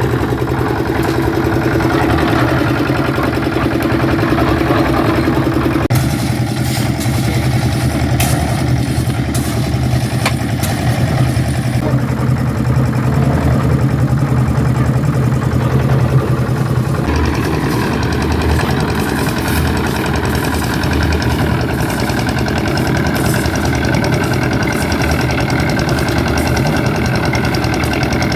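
Engine of construction machinery running steadily at a constant speed, its tone shifting a few times, with some sharp clatter in between.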